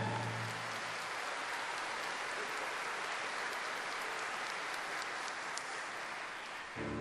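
Congregation applauding steadily, an even patter of clapping; the choir and orchestra music comes back in just before the end.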